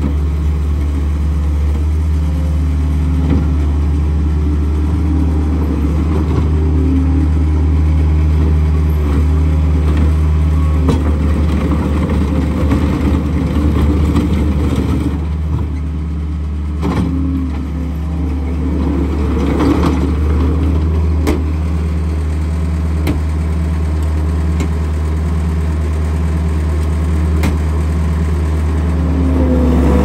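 Diesel engine of a Case 445CT compact track loader running steadily as the machine drives about on gravel, with a noisier, less even stretch about halfway through.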